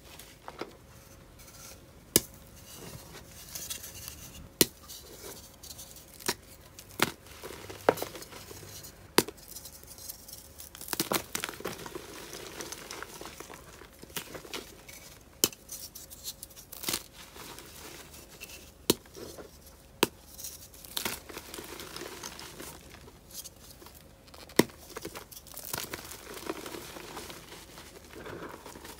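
Dried gym chalk reforms being snapped and crumbled by hand into loose chalk powder. Sharp cracks come at irregular moments as pieces break, with crunchy, powdery crumbling and rustling between them.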